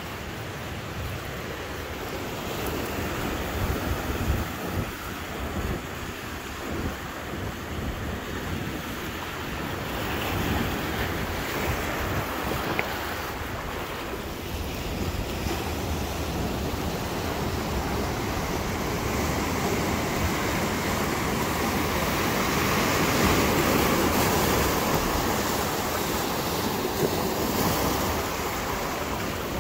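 Sea surf breaking and washing up over a rocky, pebbly shore, growing louder past the middle.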